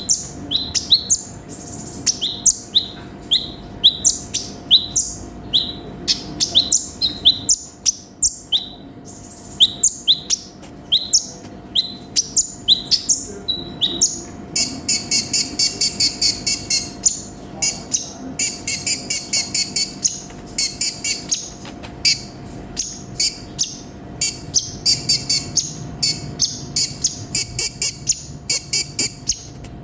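A sunbird (konin) singing. First comes a series of sharp, high notes that each sweep downward, about two a second. From about halfway it switches to fast, dense trilling chatter in short runs.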